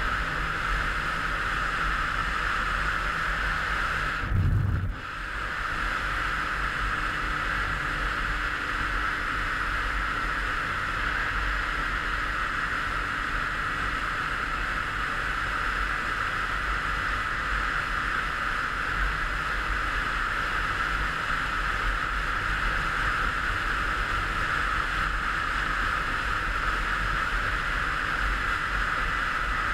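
Steady wind rush on a helmet-mounted camera riding a Derbi Senda Xtreme 50, a 50 cc two-stroke motorcycle, at constant speed, with the engine's drone buried in the wind noise. A brief low thump comes about four seconds in.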